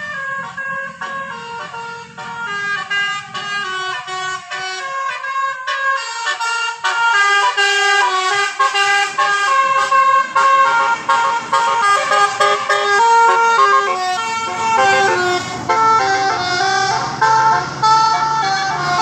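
Basuri multi-tone bus horn ('telolet') playing a fast melody of stepped notes, getting louder and fuller about six seconds in. A low engine rumble joins under it near the end.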